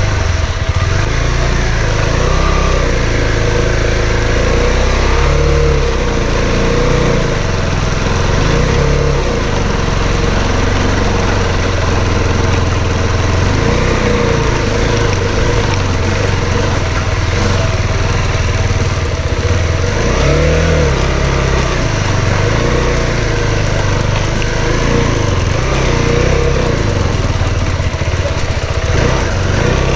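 Motorcycle engine running, its revs rising and falling again and again with the throttle.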